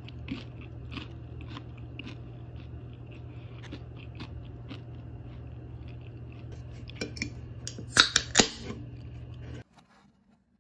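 Close-up crunching and chewing of crispy air-fried chicken: irregular crisp crackles over a steady low hum. A few loud sharp clicks come about eight seconds in, and the sound stops abruptly near the end.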